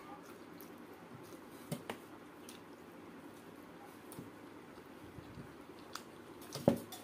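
Fingers gathering the last food from a steel plate and wiping out a small ceramic bowl: soft squishing with a few light clicks, and a sharper knock near the end.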